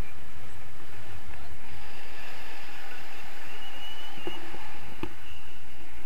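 Wind rushing over an action camera's microphone in paraglider flight: a steady rumbling noise. A brief high whistle and a couple of light knocks come about four to five seconds in.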